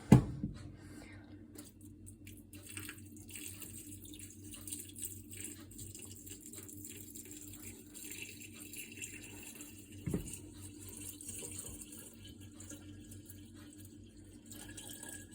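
Water being poured steadily into a countertop dishwasher's salt reservoir, filling it up after the salt has gone in. A sharp knock right at the start and a smaller one about ten seconds in.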